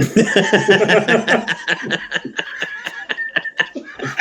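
A group of men laughing hard together, in rapid pulsing bursts that thin out towards the end.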